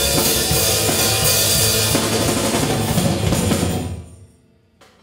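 Live rock band playing: electric guitar, bass guitar and drum kit. Near the end the song stops about four seconds in and the sound dies away quickly.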